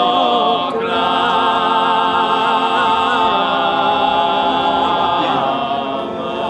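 Sardinian folk choir singing a cappella, holding long chords of several voices. The chord shifts about a second in and again near the end.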